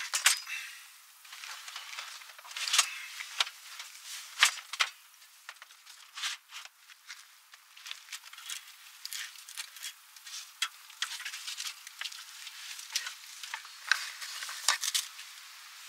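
Handling noise as gear and split firewood are moved about in a minivan's cargo area: irregular sharp knocks and clacks with rustling between them. The sound is thin, with no bass.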